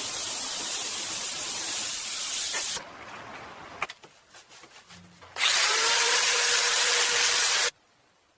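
A power tool running in two loud bursts, the first about three seconds long and the second about two, each stopping abruptly, with a quieter stretch and a single click between them.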